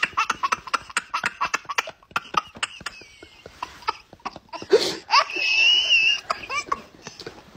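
Toddler laughing in rapid short bursts, with a long high squeal about five seconds in.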